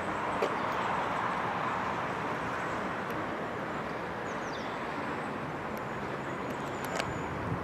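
Steady hum of distant road traffic, swelling slightly about a second in, with a few faint high chirps and a sharp click near the end.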